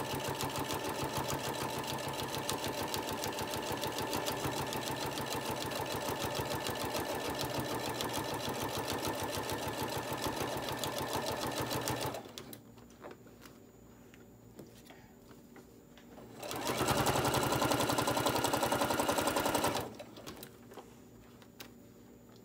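Electric sewing machine stitching bias tape through six or seven layers of fabric and batting, working hard because of the thickness. It runs steadily for about twelve seconds, stops, then makes a second, louder run of about three seconds before stopping again.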